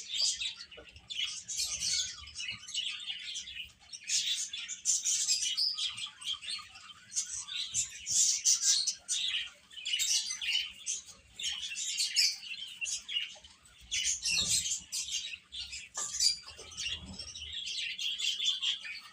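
Baby chicks peeping: many short, high-pitched chirps overlapping one another without a break.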